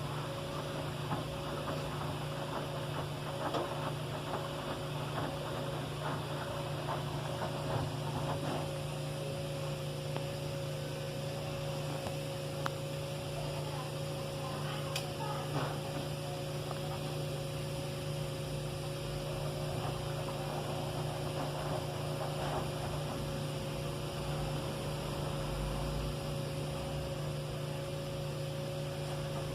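Electrolux washing machine running with a steady hum, with faint irregular ticks during the first several seconds.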